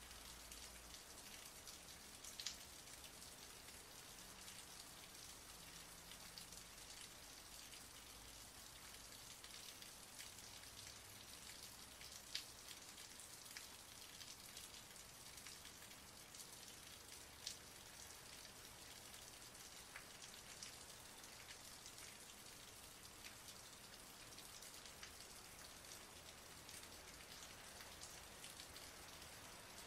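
Rain falling steadily: a soft, even hiss of many drops, with a few sharper single drop strikes standing out now and then.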